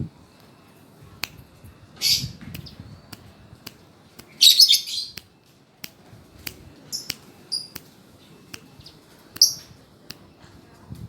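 Birds chirping: a short high-pitched chirp about two seconds in, a louder burst of chirps near the middle, and a few more short chirps near the end. A string of faint sharp clicks runs underneath.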